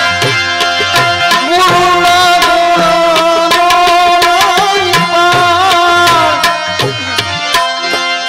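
Live santvani devotional music: tabla playing a steady beat under a long, held melody note that wavers in pitch through the middle, after which the drumming carries on alone with lighter accompaniment.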